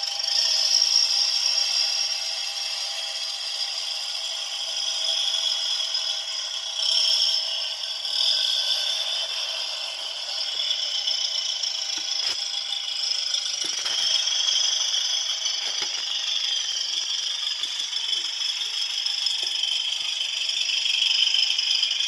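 Citroën Type H engine sound effect played through a small sound module's speaker: a steady, thin, rattling drone with no low end.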